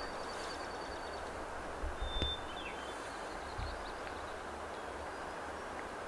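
Steady outdoor breeze noise with low rumbles of wind on the microphone, and a couple of faint, short, high bird chirps, one about two seconds in.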